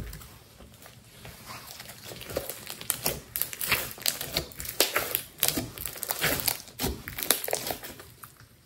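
Thick slime being stretched and pressed by hand, giving quick sticky crackles and pops. They are sparse at first and come thick and fast from about two and a half seconds in.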